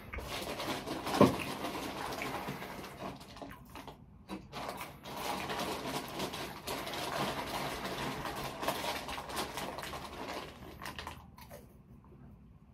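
Close-miked eating sounds: moist chewing and crackly crunching of food, with one sharp click about a second in.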